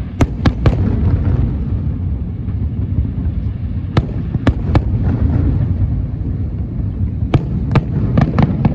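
Aerial fireworks bursting: sharp cracks in small clusters, a few close together near the start, three more around the middle and a quicker run near the end, over a steady low rumble.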